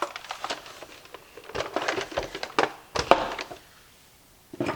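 Plastic parts of a Roomba 4108 robot vacuum clicking and knocking as they are handled and fitted back together. The clicks come in quick clusters for about three and a half seconds, then there is a pause and a brief clatter of clicks near the end.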